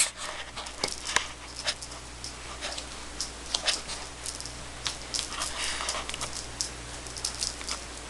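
A cat playing with a feather teaser wand: irregular soft rustles and scuffs as it bats at and grabs the feathers, thickest about six seconds in.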